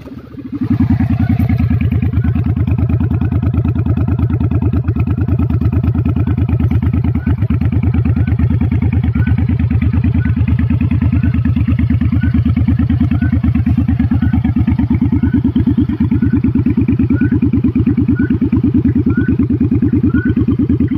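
Suzuki Boulevard C50's V-twin engine idling through a short chrome 2-into-2 custom exhaust, with an even, steady pulsing beat. The revs drop to idle just at the start and then hold steady.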